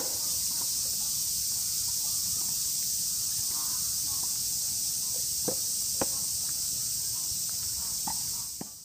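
Steady high-pitched chorus of cicadas in the surrounding trees, with a few sharp knocks of tennis balls being hit, twice around the middle and twice near the end; everything fades out at the close.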